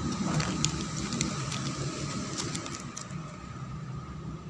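Foil liner and cardboard of a cigarette box crinkling in a few short ticks as it is folded shut by hand, over a steady low hum.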